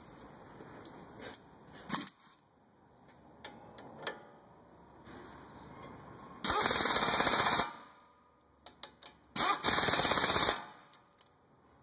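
MAC Tools impact wrench hammering bolts in, two rattling bursts of about a second each, a few seconds apart, with a few light clicks between them.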